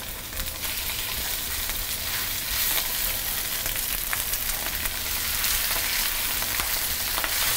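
Skin-on salmon fillets sizzling in a hot oiled cast iron skillet: a steady hiss with scattered small pops, growing a little louder about two seconds in as more fillets are laid in skin side down.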